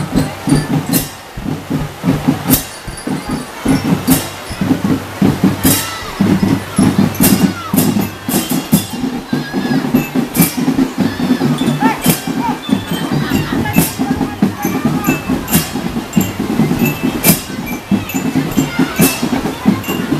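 Children's marching drum band playing: a steady pulsing drum beat, with cymbal-like crashes about every one and a half seconds over a melody line.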